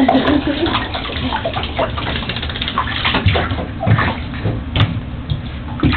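Pug puppy's claws scrabbling and tapping on the floor of a bathtub, with several dull thumps as it bumps the tub.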